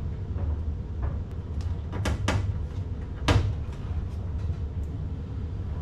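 Several short, sharp clicks and knocks from hands working on the car's hood fittings, the loudest about three seconds in, over a steady low hum.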